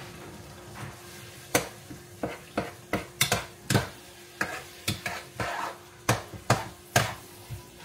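A cooking utensil stirring seasoned ground beef and onion in a pot, knocking and scraping against the pot about two to three times a second from about a second and a half in, over a light sizzle of the meat frying.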